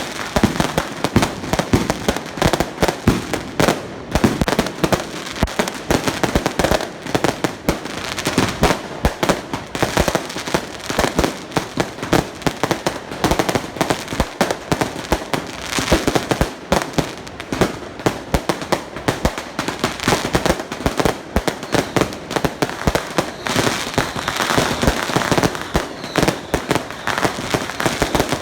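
Firecrackers going off in a dense, unbroken string of rapid bangs, many per second, with louder cracks standing out every second or so.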